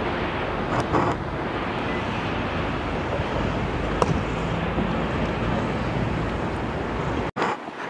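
Steady rumble of distant jet airliners taxiing at an airport, with no distinct events. It cuts out abruptly near the end.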